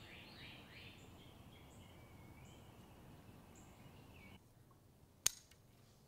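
Birds calling over a soft outdoor hiss: a quick run of short falling chirps in the first second, then fainter calls. Near the end comes a single sharp snip of kitchen scissors cutting a lavender stem.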